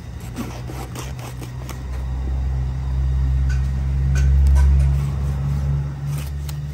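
Irregular sharp taps of a large kitchen knife cutting through trout fillet onto a plastic cutting board. Underneath, a low droning hum swells to its loudest past the middle and then fades.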